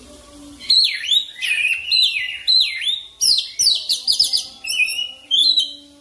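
Oriental magpie-robin (kacer) singing a fast, continuous run of loud whistled phrases: sweeping, falling whistles, then a quick trilled series in the middle, breaking off shortly before the end.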